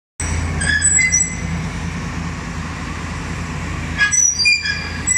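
Komatsu PC400 excavator with a vibratory sheet-pile hammer running with a steady low drone. Short, high-pitched metallic squeals come about a second in and again near the end.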